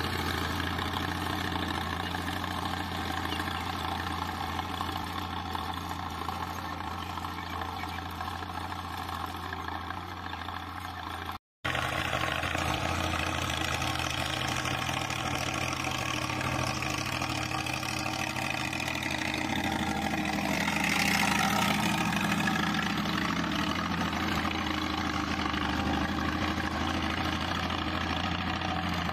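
Mahindra Arjun tractor's diesel engine running steadily while pulling a cultivator through tilled soil. The sound drops out for a moment about eleven seconds in, and it swells a little louder for a couple of seconds later on.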